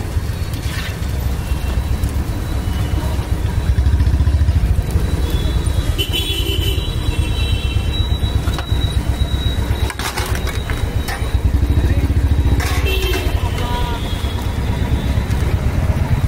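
A steady low engine rumble with a fast, even pulse runs throughout, like a motor vehicle's engine running. Brief high tones cut in twice, about six and about thirteen seconds in.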